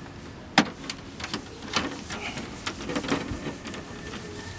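Screwdriver prying the plastic front plate and trim clips of an Audi A4 grille: irregular sharp plastic clicks and scrapes, the loudest just over half a second in.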